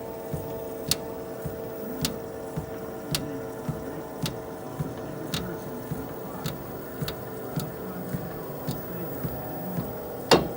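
A repeating knock, just under two a second, with every other knock louder and a much louder one near the end, over a faint steady hum.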